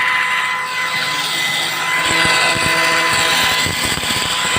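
Angle grinder, mounted upside down as a cut-off saw, running at full speed with a steady high whine and hiss; from about halfway there are irregular clattering knocks over it.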